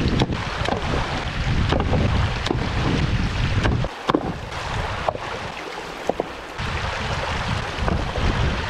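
Shallow glacial river rushing over rocks, with wind buffeting the microphone and a low rumble that eases off about four seconds in. Several sharp knocks and splashes of rocks being moved in the water are heard over the flow.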